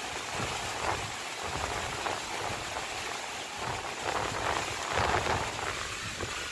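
Rough sea breaking along the shore in strong wind: a steady rushing hiss that swells a little now and then, with no clear separate impacts.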